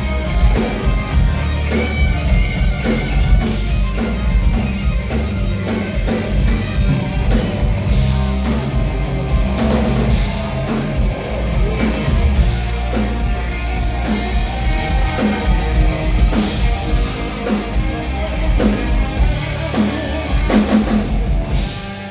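Heavy metal recording: electric guitar over bass and a steady rock drum beat, with no singing.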